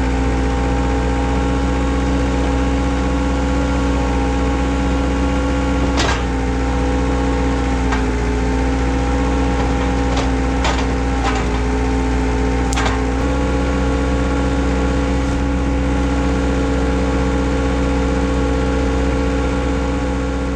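Skid steer engine running steadily under throttle. Its pitch sags slightly for a few seconds midway as it takes load. About five sharp metallic clanks come from the machine and its forks.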